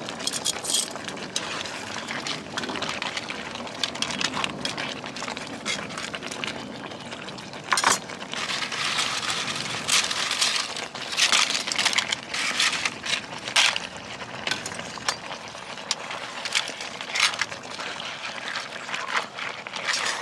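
Thick tomato-and-chili salsa boiling with fried tortilla pieces in an electric wok, bubbling with many irregular pops and clicks, densest midway through. Near the end, metal tongs clink and scrape in the pan as the chilaquiles are turned.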